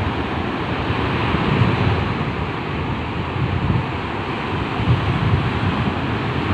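Wind buffeting the microphone in gusts over the steady wash of sea surf.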